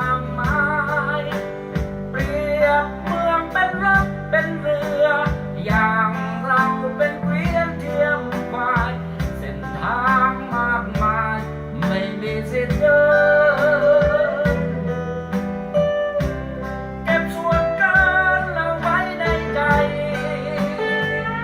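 A song with a singer's voice, wavering on held notes, over guitar accompaniment, played back through a 3-inch full-range loudspeaker.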